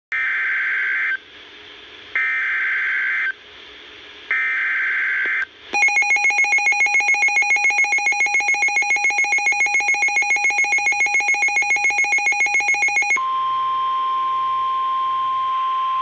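Severe thunderstorm warning coming in on a Midland weather radio's speaker. It opens with three one-second screechy SAME data header bursts, then a rapidly pulsing beeping alarm for about seven seconds, about six beeps a second. Near the end a steady single-pitch warning alert tone takes over.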